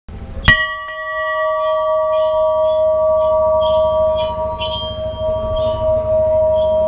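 A large hanging temple bell struck once about half a second in, then ringing on in a long, steady hum of several tones.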